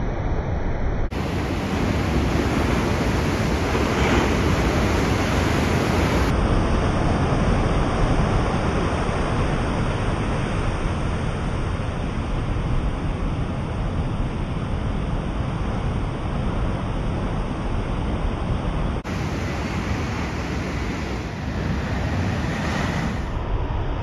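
Breaking ocean surf: a steady rushing noise of waves. Its tone changes abruptly a few times, where separate recordings are joined.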